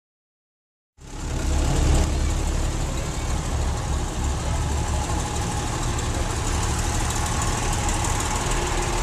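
About a second of silence, then a vintage eight-wheel lorry's diesel engine runs steadily as the lorry moves slowly past close by, with a deep, even engine note.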